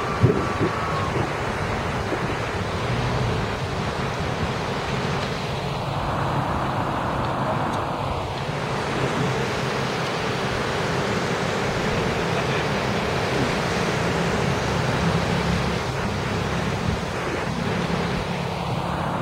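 Steady rush of ocean surf breaking on rocks, mixed with wind buffeting the microphone. A brief knock comes right at the start.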